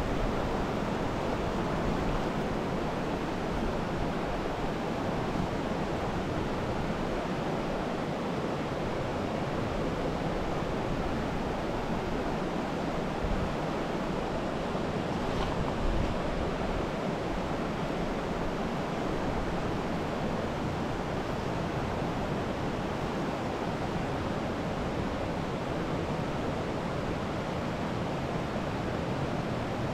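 Steady rush of a rocky creek running over riffles and stones.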